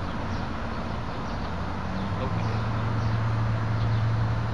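A steady low engine hum in the background, growing louder from about two seconds in, with birds chirping faintly.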